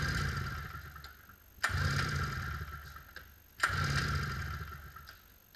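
Polaris Indy 500 snowmobile two-stroke engine cranked over three times by hand, each pull starting suddenly and spinning down over a second or so without firing. It is being turned over against compression for a compression test, which reads about 125–130 psi.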